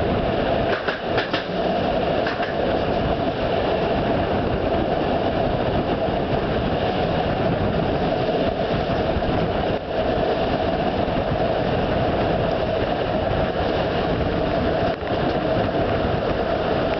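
Passenger train running along the track, heard from an open carriage window: a steady loud rumble of wheels on rails, with a few sharp clicks in the first two seconds.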